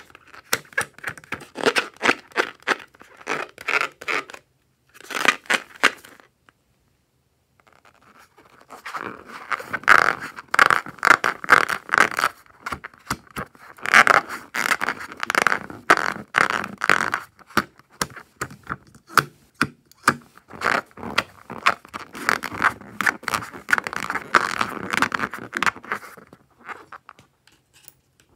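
Hands rubbing and squeezing a filled latex balloon, the fingers scraping over the rubber in spells of rapid strokes with short pauses between them.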